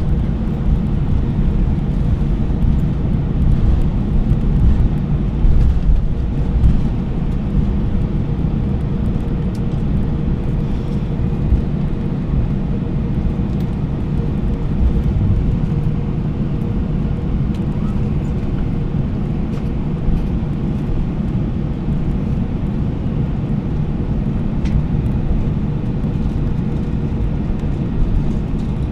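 Steady low rumble inside the cabin of an Airbus A321-200 taxiing after landing, engines at idle, with a faint steady hum running through it.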